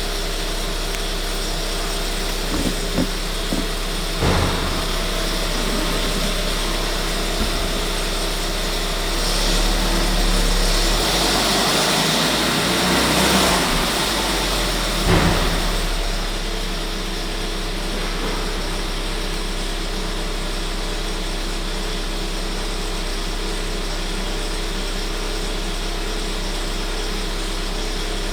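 Volkswagen 1.4 TSI 160 petrol engine running steadily, with the timing chain noise these engines are known for. It grows louder and brighter for a few seconds in the middle, with a few sharp knocks early on and another about halfway through.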